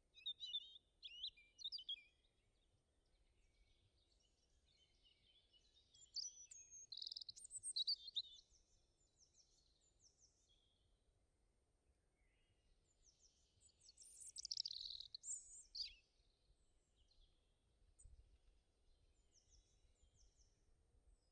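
Birds chirping faintly in three short spells a few seconds apart, with near silence between.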